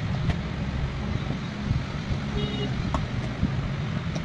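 Steady low background rumble, with a few faint clicks of a metal pick working at the edge of a laptop's plastic battery bay.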